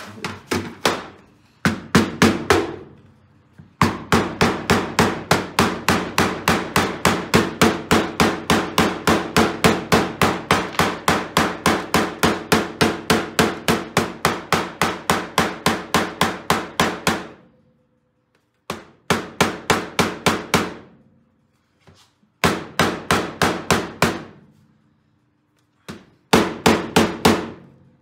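Hammer tapping a new oil seal into a Kohler Magnum 18 engine case, in a few quick taps at first, then a long run at about four taps a second, then three shorter bursts.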